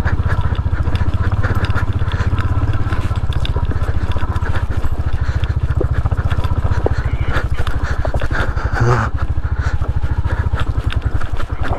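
Royal Enfield Hunter 350's single-cylinder engine running at low revs with a steady thump, heard from the rider's seat, with scattered knocks and rattles as the bike rolls slowly over a rough cobbled stone track.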